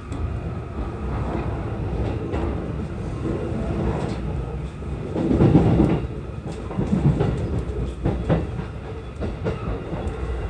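E233 series electric train running along the track, heard from inside the front car: a steady low rumble with wheels clicking over rail joints, louder for a stretch about halfway through.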